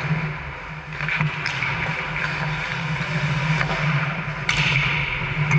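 Ice hockey play on a rink: skate blades scraping the ice and a few sharp clacks of sticks and puck, with a louder scrape about four and a half seconds in, over a steady low hum.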